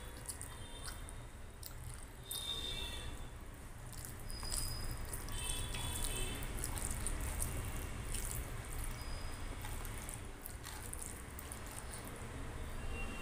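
Wet squelching and scattered clicks of fingers mixing rice with kadhi on a steel plate.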